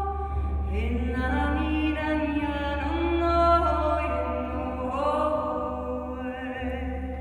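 A woman singing a slow, wordless chant-like melody in long held notes that slide up into each new pitch, over a low steady drone.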